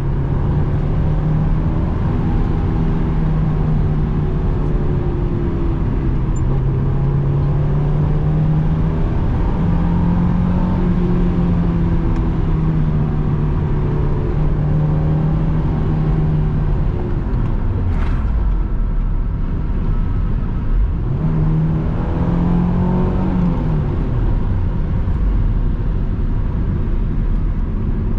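Honda S2000's JDM F20C four-cylinder engine heard from inside the cabin with the soft top up, pulling steadily while driving, its pitch stepping a little with the throttle. It drops off for a few seconds past the middle, then revs up again and falls back, over steady tyre and road noise, with one click in between.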